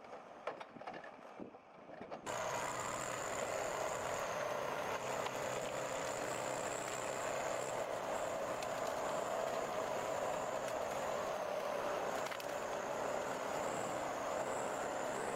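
Heavy forestry machine running steadily: engine noise with a constant high whine on top. It starts abruptly about two seconds in, after a quieter stretch with a few faint knocks.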